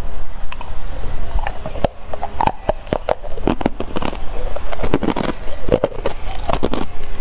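Ice cubes coated in matcha powder being bitten and crunched between the teeth: a rapid, irregular run of sharp cracks and crunches, over a steady low rumble.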